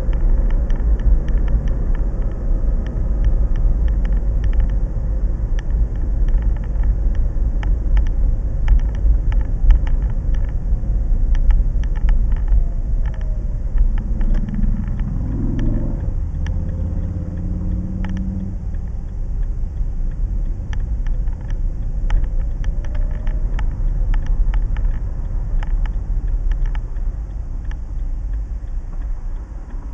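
Car cabin road noise from a dashcam: a steady low rumble of the moving car, with frequent short clicks and rattles. A few brief pitched sounds come in about halfway through.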